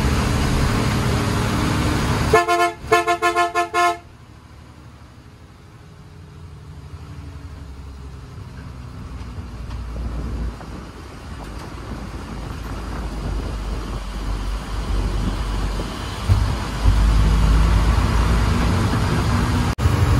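A lorry horn sounded in a quick series of short blasts about two seconds in, over the truck's diesel engine heard from inside the cab. After the horn the engine drone drops much quieter, then builds back up and is loud again near the end as the lorry climbs the ghat road.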